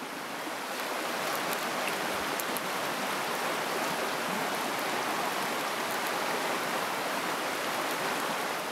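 Rushing stream water running over rocks: a steady, even rush that fades out at the end.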